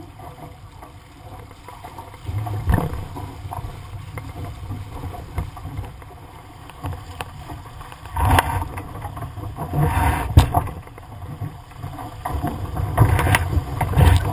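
Laser Vago sailing dinghy's hull slicing through choppy water, with water rushing and splashing along the hull and a low rumble of wind on the microphone. Louder surges of spray come about 8 and 10 seconds in and again near the end.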